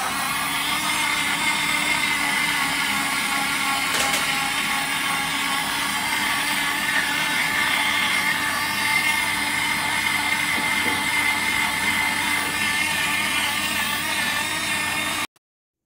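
Portable battery-powered USB bottle blender running with water inside, a steady motor whine with the blades churning the water; it cuts off suddenly near the end.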